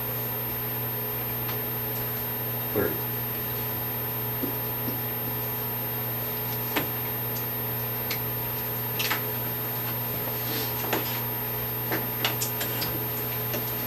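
Steady low hum of room ventilation, with scattered light clicks and rustles of handled paper.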